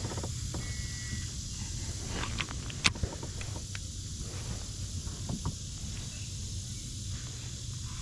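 Baitcasting reel being cranked during a lure retrieve, over a steady low rumble and hiss, with scattered light clicks and one sharper click about three seconds in.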